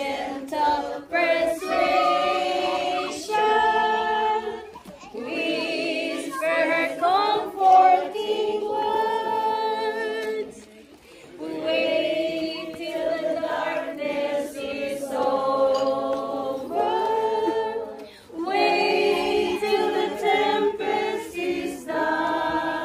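A mixed group of adult voices singing a song together in unison with no instruments. The lines are sung in long held phrases, with a short breath pause about every six seconds.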